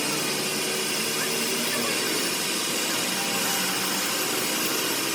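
A workshop machine or air tool running steadily, giving a strong even hiss with a faint hum under it.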